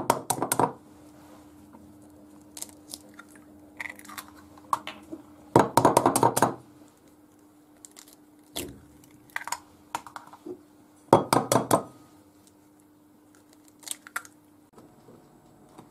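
Eggs being cracked into a glass bowl, one after another: clusters of sharp taps and shell crunches every few seconds, with a faint steady hum underneath.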